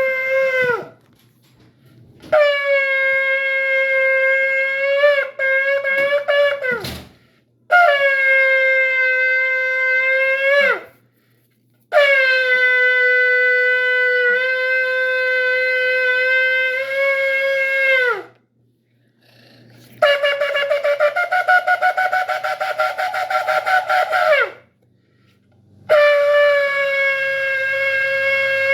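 Shofar blown in a series of long sustained blasts with short pauses between, each ending in a downward slide in pitch. One blast about two-thirds of the way through is higher and rapidly fluttering.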